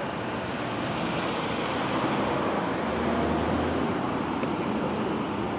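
Steady street traffic noise, a continuous roar of passing vehicles, with a low engine hum for about a second midway.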